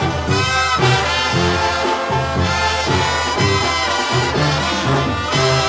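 Mexican banda brass section playing an instrumental passage: trumpets and trombones together over sousaphone bass notes.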